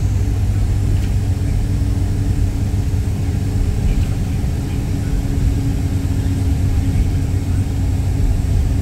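Steady low rumble of a vehicle running at speed, heard from inside the cabin, with a faint steady hum over it.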